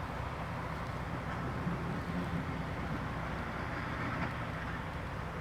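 Lorry engine running steadily with road noise, heard from inside the cab while driving.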